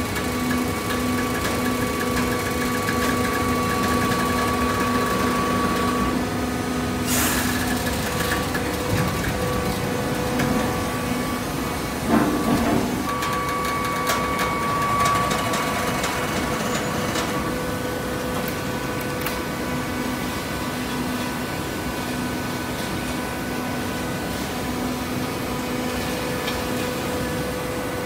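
Automatic horizontal waste-paper baler running: a steady hum from its hydraulic press machinery, with a sharp knock about seven seconds in and a clunk around twelve seconds.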